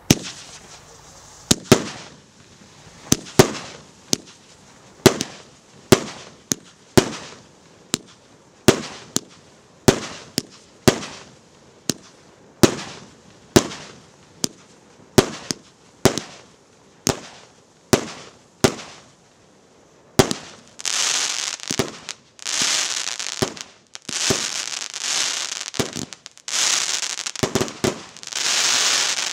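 Galaktika 'Sochelnik' A7316 25-shot, 1.2-inch fireworks cake firing: a steady run of sharp bangs, one or two a second, each dying away quickly. For the last third they give way to loud, continuous dense crackling from the crackling-willow finale.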